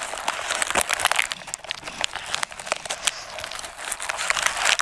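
Close-miked chewing of a crispy fried lumpia-like pastry, with its paper wrapper crinkling in the hands: a steady stream of small irregular crackles.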